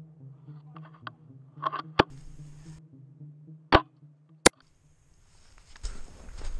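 A few sharp snaps: the loudest about two seconds in, then two close together less than a second apart near the four-second mark, over a faint steady low hum. A hissing outdoor noise rises near the end.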